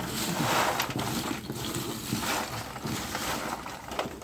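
Lumps of charcoal scraping and clinking as they are scooped from a heap with a metal scoop, in uneven scrapes with a few sharp clicks.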